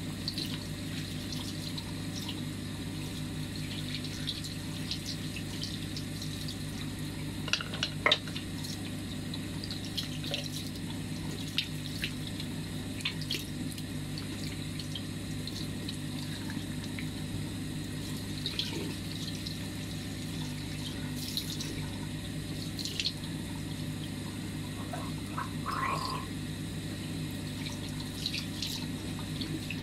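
Bathroom tap running steadily into a sink, with a few light clicks and knocks, the sharpest about eight seconds in.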